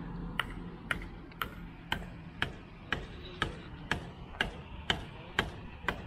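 Sharp knocks repeating steadily, about two a second, each with a short ring.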